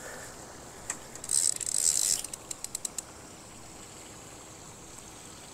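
Fishing reel clicking: a fast, dense run of clicks for about a second, then a handful of separate clicks that stop about three seconds in.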